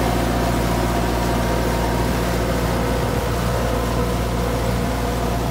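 Weed-harvester boat's engine running steadily under load, with the churning of its propeller wash.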